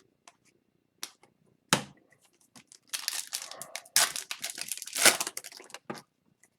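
Foil wrapper of a hockey card pack being torn open and crinkled: a sharp snap about two seconds in, then about three seconds of crackling.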